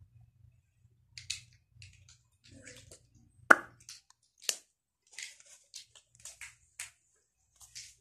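Irregular wet lip smacks and mouth clicks as freshly applied lip balm is pressed and spread across the lips, the loudest smack about three and a half seconds in.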